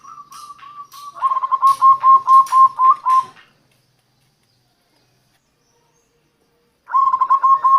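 Zebra dove (perkutut) song: a soft trill builds into a rapid run of short repeated cooing notes that stops about three and a half seconds in, then after a silence a new run starts near the end.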